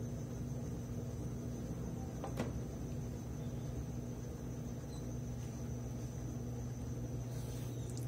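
Consul CWE13AB 13 kg top-load washing machine running, its motor giving a steady low hum as the wet towels turn in the tub. One sharp click a little over two seconds in.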